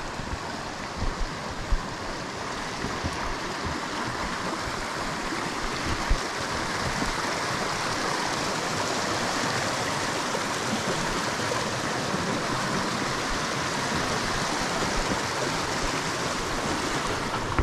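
Small creek running over rocks: a steady rush that grows louder over the first several seconds. A few brief knocks sound near the start and about six seconds in.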